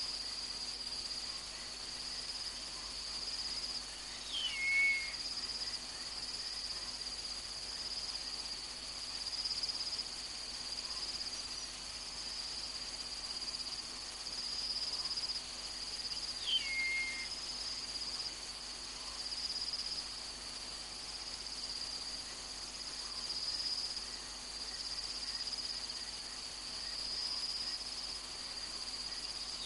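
Steady chirring of night insects in a high band that swells and fades every couple of seconds. A short call that slides down in pitch and then levels off cuts in twice, about four seconds in and again about sixteen seconds in.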